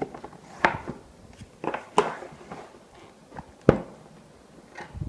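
A tablet's retail box being opened by hand: a handful of separate sharp knocks and scraping sounds as the packaging is handled. The loudest knock comes about three and a half seconds in.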